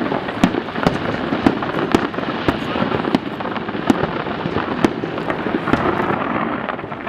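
Fireworks going off in rapid, irregular succession: a dense crackle with many sharp bangs, several a second, some louder than the rest, and no letup.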